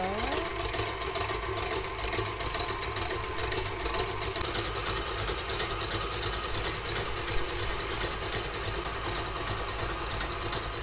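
KitchenAid Artisan stand mixer running steadily, its wire whisk whipping egg whites into meringue as sugar is poured in for macaron shells.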